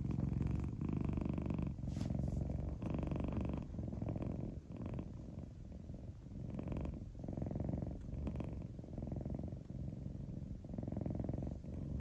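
Domestic cat purring, a low rumble that swells and breaks with each breath, about once a second.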